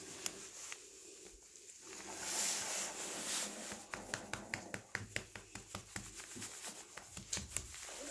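A hand rubbing and patting a cat's fur: soft swishing, then from about halfway a quick run of small ticks and taps, several a second.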